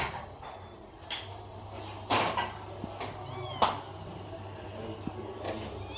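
Kitten giving a short, high-pitched mew about three seconds in, among a few sharp knocks and thumps.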